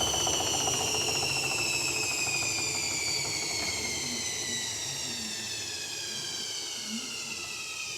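Hoover Dynamic Next washing machine, door open, coasting down from a spin: its motor and drum whine falls steadily in pitch and slowly gets quieter as the spin is stopped.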